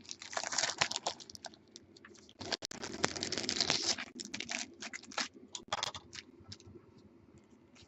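Foil trading-card pack wrapper crinkling and tearing open in two rustling spells, followed by a quick run of clicks and taps as the cards are handled, then only a few faint ticks.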